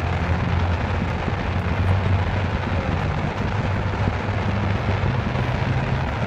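Fireworks display heard from across the water: rows of fan-shaped fountain and comet effects firing continuously, making a steady rushing rumble and hiss with no single loud bang.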